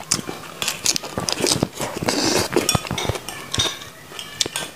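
Close-miked eating: crisp bites of a raw lettuce leaf and wet chewing, with many small clicks and smacks.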